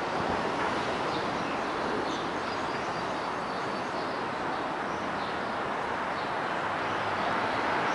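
A New York City Subway 7 train approaching on the elevated track, heard as a steady distant rumble that grows slightly louder near the end, with faint bird chirps.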